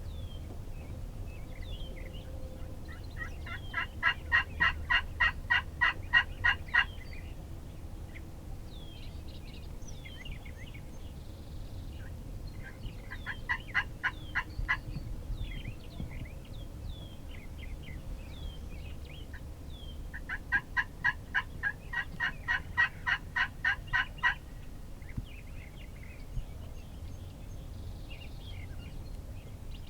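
Turkey yelping in three runs of rapid, evenly spaced notes, the first and last about four seconds long, sent out as a call to locate a gobbler; no turkey answers. Short songbird chirps sound between the runs.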